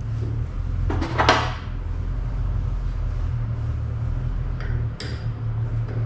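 Hand tools working on a Bandolero race car's chassis over a steady low hum. A loud, brief clatter comes about a second in, and a sharper metal clank near five seconds.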